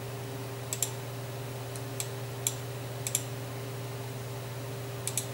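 Computer mouse buttons clicking several times, some in quick double-click pairs, over a steady low electrical hum.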